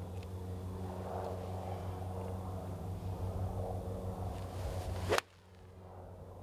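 A golfer's seven-iron swishes through the downswing and strikes the ball with one sharp crack about five seconds in, over a steady low background hum that drops away right after the strike.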